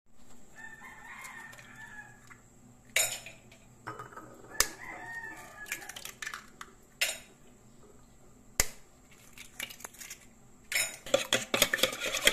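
Eggs cracked one at a time on the rim of a bowl: four sharp knocks a second or two apart. Near the end a silicone whisk starts beating the eggs in the bowl, a quick run of clicks.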